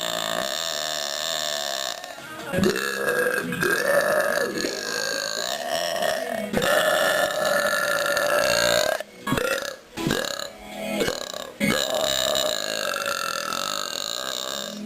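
A woman belching: a run of long, drawn-out belches, with a few short ones in the middle.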